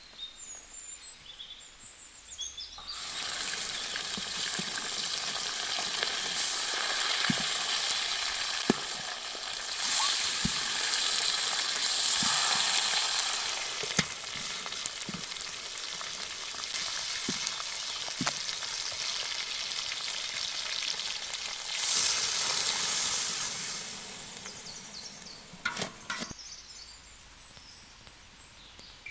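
Pork head sizzling as it fries in hot oil in a large pan, starting a few seconds in and fading out near the end. A spatula scrapes and turns it, with sharp knocks against the pan.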